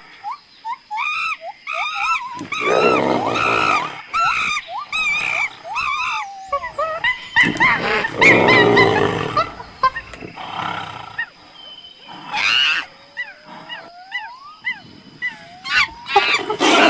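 Tigers snarling and growling in several harsh bursts, mixed with many short, high-pitched yelping calls that rise and fall.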